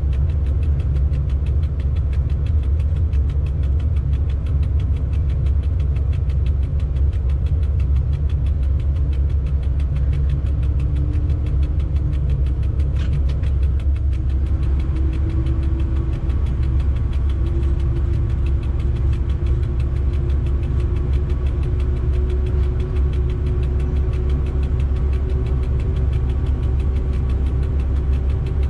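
Cab of a Swedish Rc4 electric locomotive: a steady low hum, joined about ten seconds in by a faint whine that slowly rises in pitch as the locomotive gets under way. A single short click comes shortly after the whine begins.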